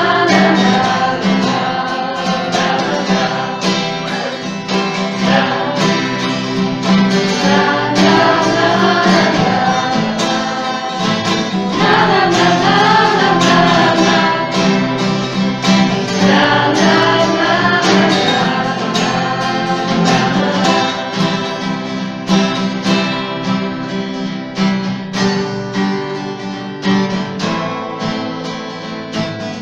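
Song sung by a small group of men and women together, accompanied by two strummed guitars.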